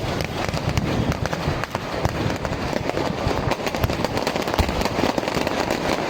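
Fireworks going off in a dense, continuous barrage: many rapid overlapping bangs and crackles over a steady low rumble.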